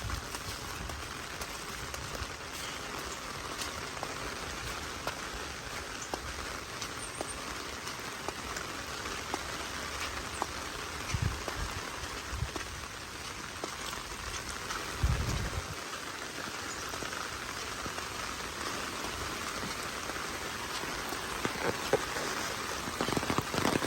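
Heavy rain falling steadily, with many close drops ticking on an umbrella over the steady hiss of the downpour. There are a couple of low thumps around the middle.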